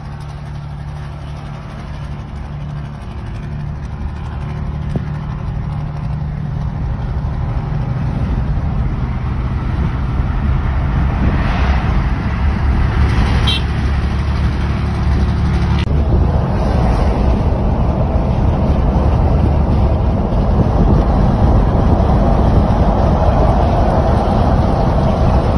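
Highway driving noise heard inside a car cabin: a steady low engine drone under tyre and wind noise that grows steadily louder as the car speeds up alongside a truck.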